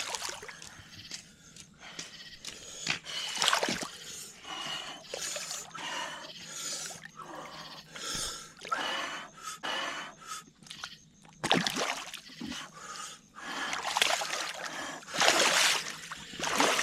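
Water splashing in irregular bursts as a hooked blue catfish thrashes at the surface, with the loudest bursts about 3 s in, about 12 s in and again near the end.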